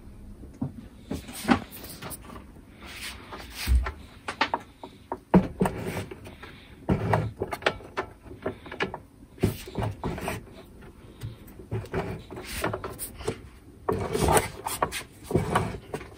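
Hands working on a DeWalt DW735 thickness planer taken apart for repair: irregular knocks, clicks and clatter of its plastic housing and metal parts being handled.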